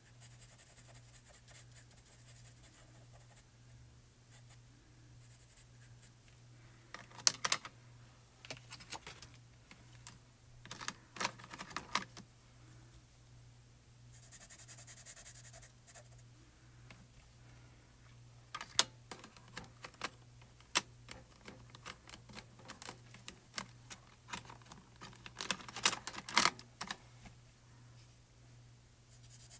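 Colored pencil scratching on stamped cardstock in quick, short strokes, with scattered small clicks and taps of the pencil tip on the card. A faint steady hum runs underneath.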